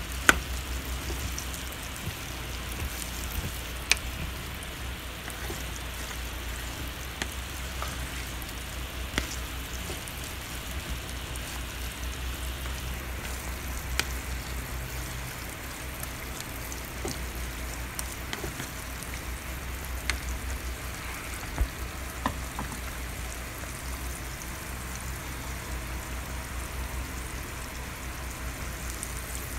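Green mango pickle cooking in a pan of spiced oil, sizzling steadily, with a few single sharp clicks scattered through it and a steady low hum underneath.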